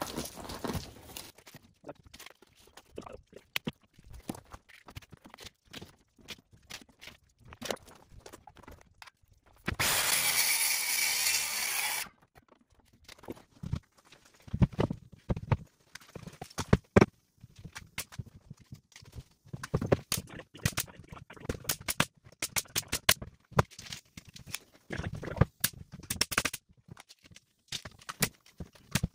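A loud steady rush lasting about two seconds, about ten seconds in, then many sharp irregular bangs and knocks from a pneumatic framing nailer fastening OSB sheathing to a stud wall frame.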